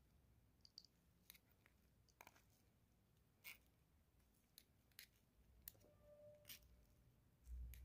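Faint, scattered clicks and scrapes of a metal spoon pressing grated pulp against a stainless-steel mesh strainer, with a low thump near the end.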